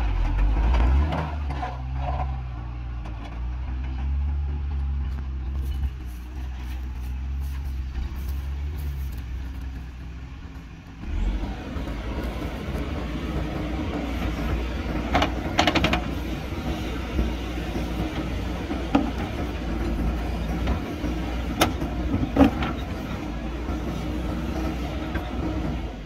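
Diesel engines of a JCB backhoe loader and a loaded dump truck running, a low steady drone. About eleven seconds in the sound changes abruptly to the backhoe's engine working as it digs, with several sharp clanks over the following seconds.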